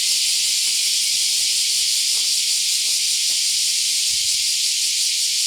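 Cicadas singing in a steady, loud chorus: a continuous high-pitched shrill buzz that does not pulse or pause.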